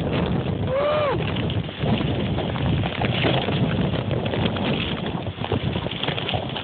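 Blizzard wind gusting and buffeting the microphone in an uneven, rushing noise. About a second in, a brief pitched sound rises and falls once.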